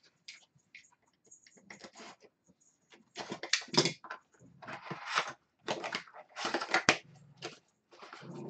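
Cardboard trading-card box being opened and its wrapped packs pulled out: crinkling, rustling and scraping of card and wrappers in irregular bursts, sparse at first and busier and louder from about three seconds in.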